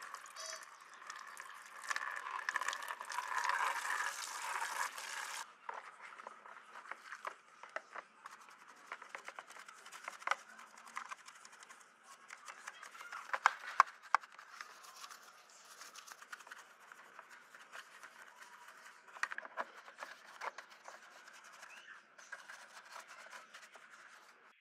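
Water swished by hand in a plastic basin, a steady hiss that cuts off about five seconds in. Then a stiff plastic-handled brush scrubs a plastic speaker enclosure in soapy water: many short scratching strokes, with a couple of sharp knocks of the brush against the case in the middle.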